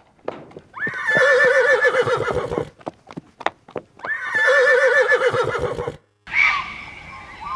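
A horse whinnying twice, each neigh about two seconds long with a quick rise and a fast quavering pitch, with sharp knocks before and between the calls.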